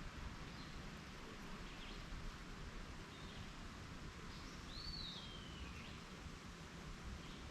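Songbirds calling over a steady outdoor background hiss and low rumble: a few short high chirps, and one longer call about five seconds in that slides down in pitch.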